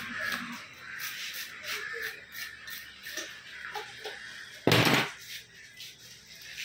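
Knife scraping the scales off a large fish on a wet wooden board, in quick repeated strokes, about three or four a second. A loud thump about four and a half seconds in.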